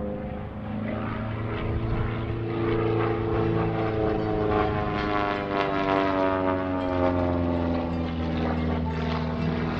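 DHC-1 Super Chipmunk's piston engine and propeller droning through an aerobatic routine, the pitch sinking slowly over several seconds in the middle.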